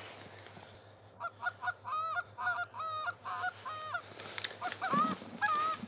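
A run of goose honks, short calls that bend up and down in pitch, starting about a second in and repeating about two to three times a second, with a short break near the four-second mark.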